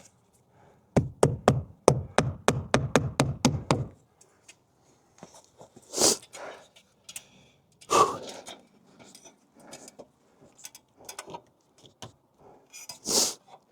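A quick run of about a dozen hammer blows on wood, about four a second, followed by a few scattered knocks and thumps.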